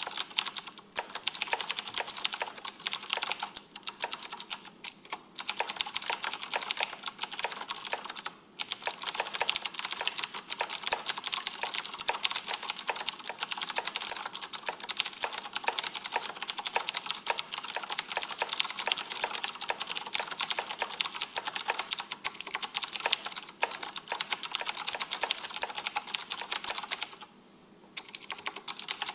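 Fast typing on a Razer BlackWidow Ultimate mechanical keyboard with clicky Cherry MX Blue switches: a dense run of sharp key clicks, broken by a short pause about eight seconds in and another near the end before the typing resumes.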